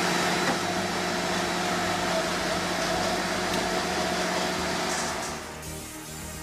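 Steady mechanical running hum with a constant tone, typical of a motor-driven wood-processing machine. It drops away about five seconds in, and background music begins.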